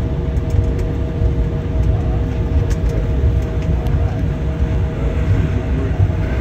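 Airliner cabin noise while taxiing after landing: a steady low rumble from the engines and rolling gear, with a constant two-note hum.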